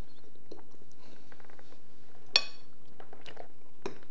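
Tableware at a meal: small clicks and one sharp, ringing clink about two seconds in, over a steady low hum.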